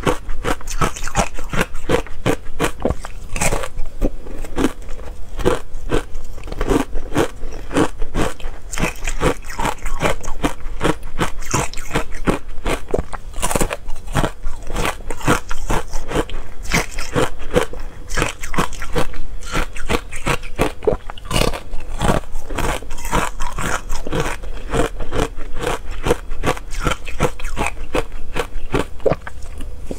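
Ice coated in matcha powder being bitten and chewed: a dense run of sharp, irregular crunches.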